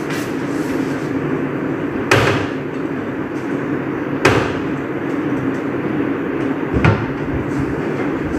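Wooden kitchen wall cabinet being opened and shut and jars taken down: three sharp knocks a couple of seconds apart over a steady low hum.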